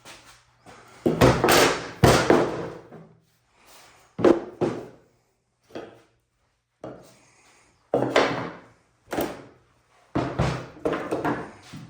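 A series of about ten separate knocks and thunks, irregularly spaced, as hand tools such as a hammer, pounding block and squares are picked up and set down on a workbench.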